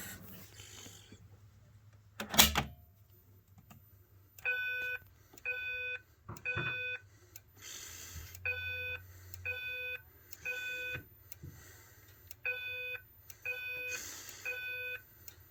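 A sharp click about two seconds in as a fire alarm pull station is pulled. Then a fire alarm speaker sounds the Simplex voice evacuation alert tone: even, buzzy beeps about half a second long in repeating groups of three, the temporal-three evacuation signal.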